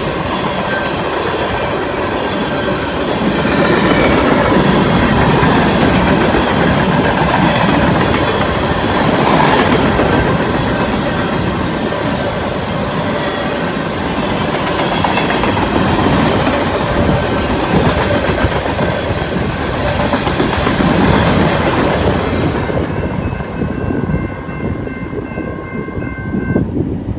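Freight train of tank cars rolling past, steel wheels clattering over the rails. About 23 seconds in the last car goes by and the noise drops, leaving the steady ringing tones of the grade-crossing signal bells.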